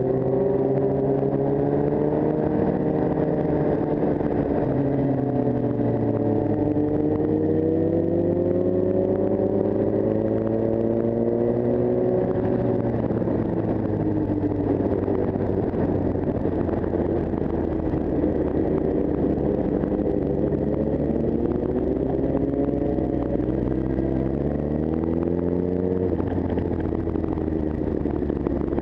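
Sport motorcycle engine heard while riding, recorded on a helmet camera over wind rush. Its pitch climbs slowly under acceleration for the first dozen seconds, drops away, then climbs again and falls off near the end.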